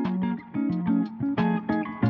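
Background music led by plucked guitar notes.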